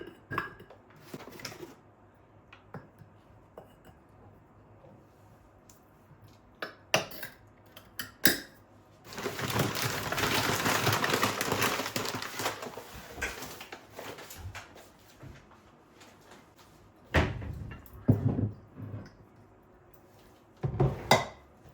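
Dishes, bowls and utensils being handled during baking: scattered clinks and knocks, with a steady rushing noise for about four seconds in the middle and louder clattering near the end.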